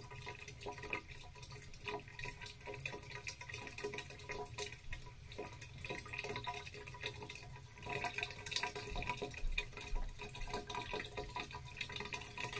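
Bath water in a tub dripping and lightly sloshing, in small irregular splashes that grow busier about two-thirds of the way through, over a steady low hum.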